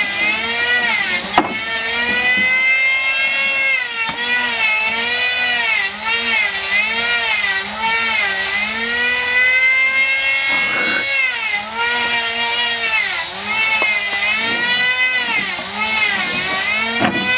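An electric power tool's motor whining, its pitch dipping and recovering again and again. There is a sharp click about a second in and brief rasping bursts near the middle and the end.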